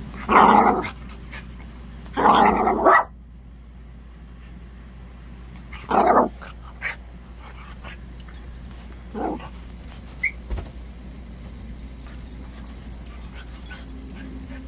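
Dogs barking while they play: two loud barks in the first three seconds, another about six seconds in, and a softer one about nine seconds in.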